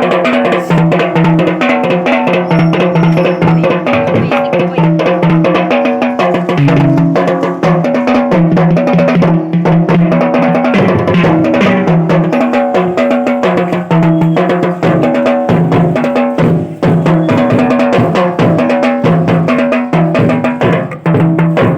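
Music with a drum kit playing a busy beat over a moving bass line and melodic instruments.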